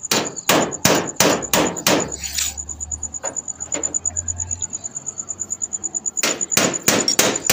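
Impact gun running the crankshaft pulley bolt into a Toyota 2TR engine: sharp metallic hammering blows about three a second, easing to a quieter whirr with a low hum for a few seconds in the middle, then hammering hard again near the end.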